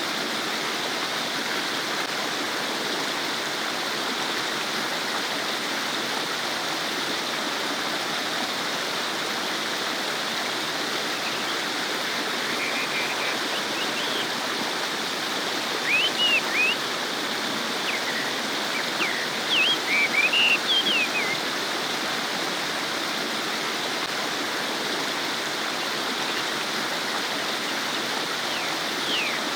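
Small stream babbling steadily over rocks. Near the middle, a few short high chirps break in over the water.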